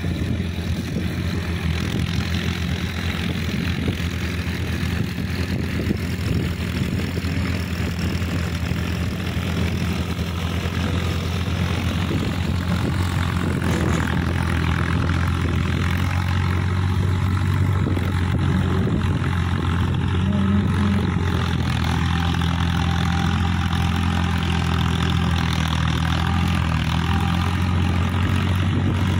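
Farm tractor's diesel engine running steadily under load while tilling a field, growing a little louder about halfway through.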